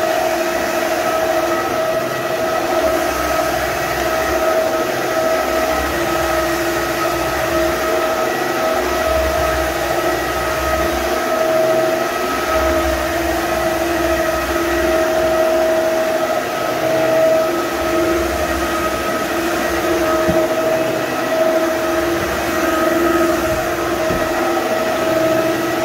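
Electric hard-floor wet cleaner running with a steady motor whine and suction as it is pushed back and forth over a wet hardwood floor. A low rumble swells and fades every few seconds.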